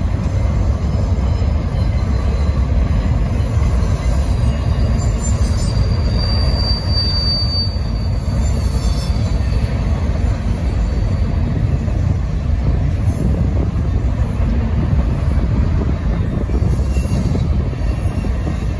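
Double-stacked container cars of a long BNSF freight train rolling past with a steady, loud rumble of wheels on rail. About five seconds in, a thin high wheel squeal rises for a few seconds and then fades.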